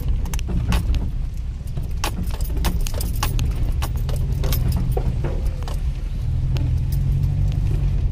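Car driving along a rough road, heard inside the cabin: a steady low engine and road rumble with frequent irregular clicks and rattles from loose items shaking in the car.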